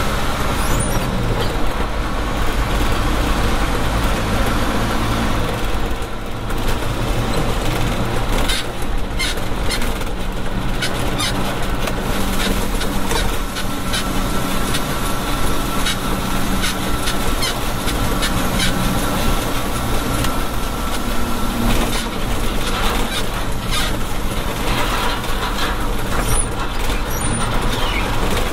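Heavy truck crane's Nissan Diesel PF6TB diesel engine running under way, heard from inside the closed cab, its note shifting with throttle and gear changes over steady road noise. Occasional clicking rattles from the cab in the middle.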